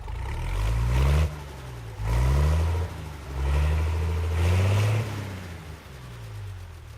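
A vehicle engine accelerating, its pitch climbing and dropping back several times as if shifting up through gears, then easing off near the end.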